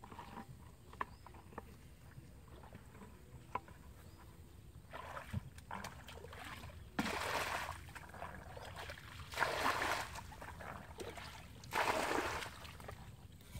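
Water sloshing and splashing: three loud splashes a couple of seconds apart in the second half, after scattered small drips and clicks.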